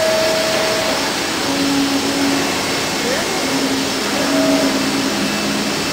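DAMA HDC-1640 high-speed drilling center running: a steady hiss with a hum that holds one pitch at a time and shifts pitch a few times.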